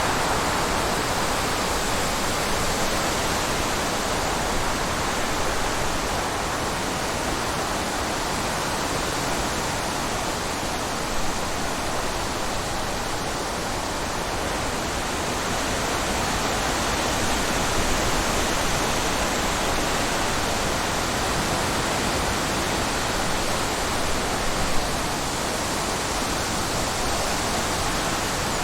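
Wind blowing in a steady rushing hiss that slowly rises and eases a little, with a couple of faint brief knocks.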